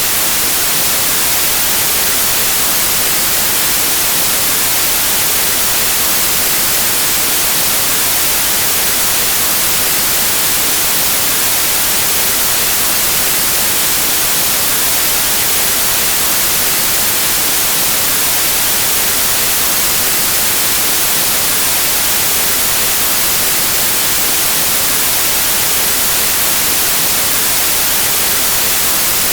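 Steady, unchanging white noise: an even static hiss with no tones or events.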